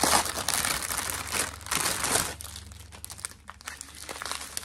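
Clear plastic bag of diamond painting drill packets crinkling and rustling as it is handled. It is loudest in the first two seconds and quieter after.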